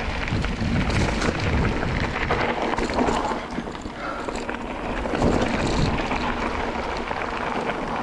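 Wind buffeting the microphone of a mountain bike rider on a descent, over the rolling crunch of knobby tyres on dirt and loose gravel, with many small clicks and rattles.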